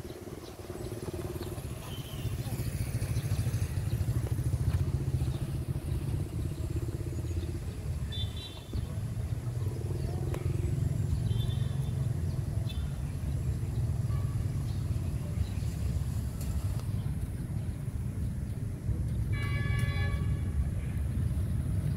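Street traffic, motorcycles and cars, passing with a continuous low rumble. A few brief high-pitched tones cut through it, the longest, about a second, near the end.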